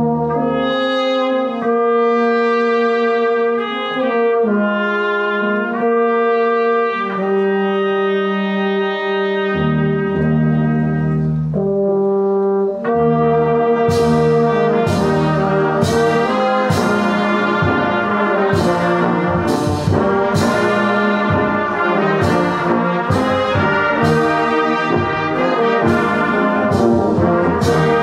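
Brass band playing a hymn. A solo trumpet carries the melody over held low notes, then about fourteen seconds in the full band comes in with a steady beat of sharp percussive strikes.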